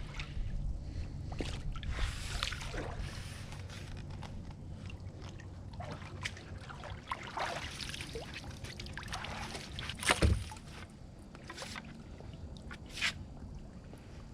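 Water sloshing and splashing unevenly as a person wades through shallow swamp water, with a louder thump about ten seconds in.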